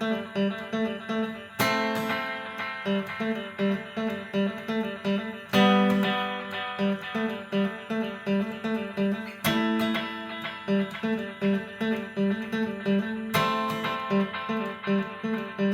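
Guitar played through a tape recording and playback setup with standard tape deck heads and a pressure pad on the record head. A full chord is strummed about every four seconds, with single picked notes in a steady rhythm between the chords.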